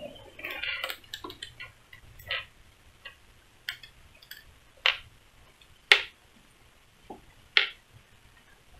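Scattered, irregular clicks and taps of hands handling a full-face motorcycle helmet as fingers press and work at its shell and lining. The sharpest clicks come about five, six and seven and a half seconds in.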